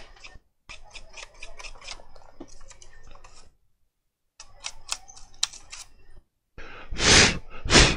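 Light clicks and taps of handling, then two short hissing blasts of air near the end, blown through a laptop's cooling fan to clean it.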